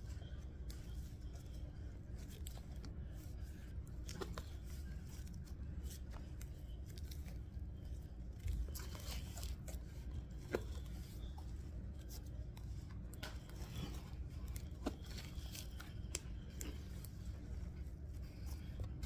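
Sticky homemade slime being stretched and kneaded by hand, giving scattered small clicks and crackles as it pulls apart. A steady low rumble runs underneath.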